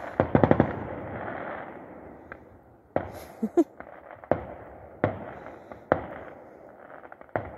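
Fireworks going off: a quick cluster of sharp bangs with crackling after it, then single bangs about a second apart.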